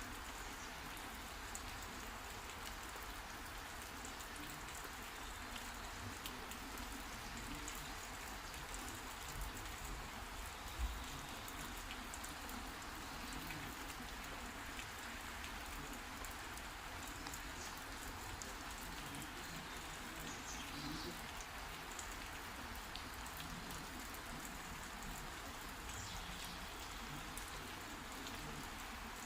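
Steady heavy rain falling and pattering on surfaces, with a single short thump about eleven seconds in.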